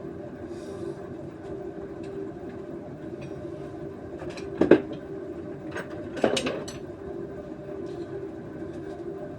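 A steady hum with scattered light clicks, and two loud sharp knocks about a second and a half apart near the middle.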